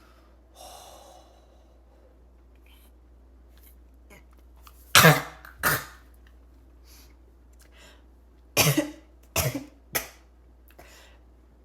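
A person's barking, choking cough. A soft breath is drawn, then come two harsh coughs about five seconds in and a fit of three more towards the end.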